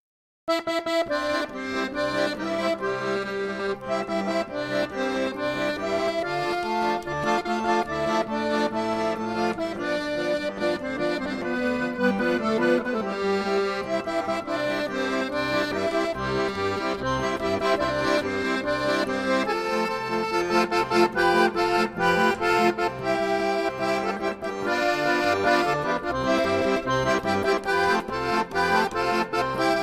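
Instrumental background music with held, changing notes, starting suddenly about half a second in after silence.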